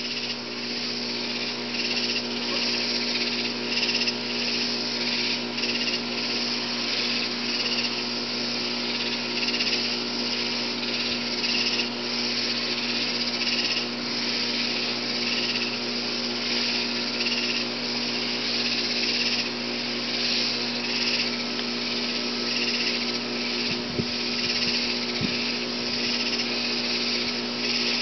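Katydid stridulating: a continuous high buzz with a quick pulsing rhythm, over a low steady hum.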